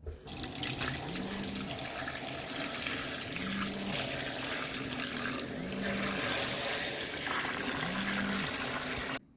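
Kitchen tap running steadily into a sink while raw beef liver is washed under it; the running water cuts off suddenly near the end.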